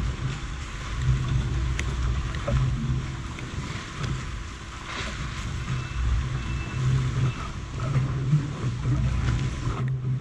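Wind rumbling on the microphone over choppy harbour water lapping around a small boat.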